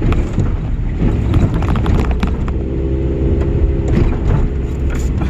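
Vehicle driving over a potholed dirt road, heard from inside the cab: a low rumble of road and engine noise with repeated knocks and rattles as it jolts over the holes. An engine drone holds a steady pitch from about halfway in.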